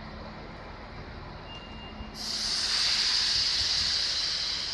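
Sudden loud hiss of compressed air venting from a train's brake system, starting about two seconds in and holding steady.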